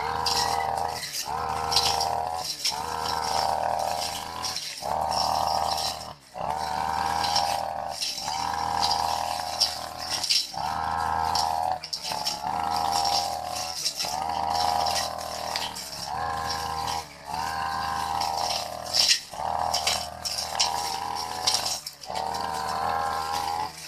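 Brush cutter engine running at high revs while its blade cuts long grass, the sound dipping briefly about every second and a half, then picking up again.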